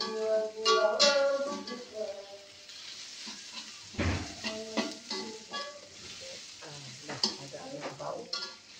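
Chopped aromatics and chili sizzling in hot oil in a metal wok, with a metal spatula scraping and knocking against the pan as they are stirred; the sharpest knock comes about four seconds in. The aromatics are being fried until fragrant, the stage before the meat goes in.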